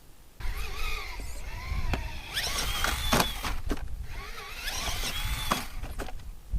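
An Axial SCX10 II RC crawler's electric motor and geared drivetrain whine as it is driven on a 3S LiPo, the pitch gliding up and down with the throttle. Several sharp knocks and clatters of the truck on rock come through it. The sound starts suddenly about half a second in.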